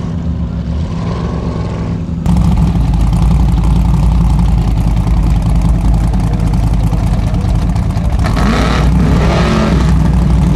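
Off-road competition buggy engine running hard under full throttle as the car climbs a steep dirt and gravel bank. The sound steps up abruptly about two seconds in and then stays loud and steady.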